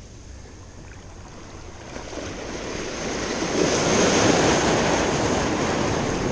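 Small waves washing and breaking in the shallows around the camera: a rush of surf that builds from about two seconds in and swells loudest near the end.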